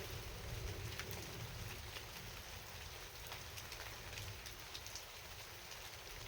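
Rain falling steadily at night, with many distinct drop hits over an even hiss and a low rumble underneath.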